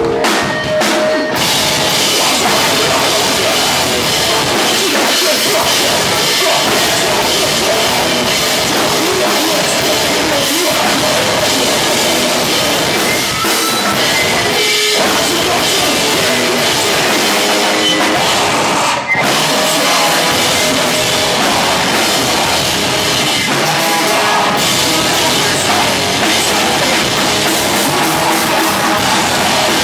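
A rock band playing loud and live: drum kit, electric guitars and bass guitar, with a vocalist singing into a handheld microphone. The band stops for a split second about two-thirds of the way through.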